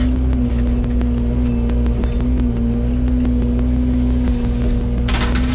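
Yanmar VIO80 excavator running steadily with a strong even hum and a rapid, regular ticking. About five seconds in there is a short harsh burst of noise.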